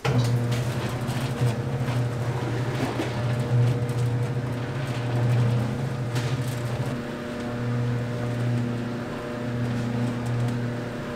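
Electric motor of a stainless-steel mixing machine humming steadily while blood-soaked glass noodles are mixed for blood sausage, with a few faint clicks of wet handling.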